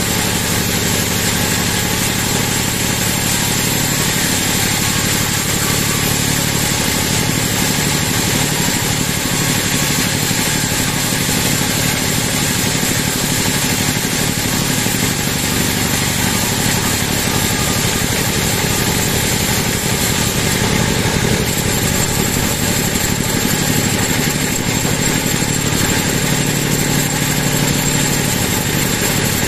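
Large vertical band sawmill running and ripping through a big teak log: a steady, loud machine drone with the blade's hiss in the wood and a thin high whine over it.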